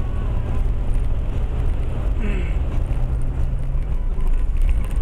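Car engine running as the car drives through shallow floodwater covering the road, with tyre and water noise, heard from inside the cabin. A steady low engine hum drops away about four seconds in.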